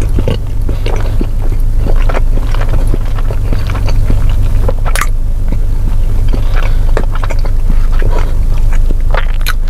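Close-miked chewing of a mouthful of steak fajita: irregular wet smacks and clicks of the mouth. Under it runs a steady low hum from the car's running engine.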